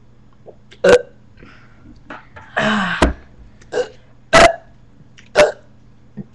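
A person burping over and over, about five short burps roughly a second apart. The one about two and a half seconds in is longer, lasting about half a second.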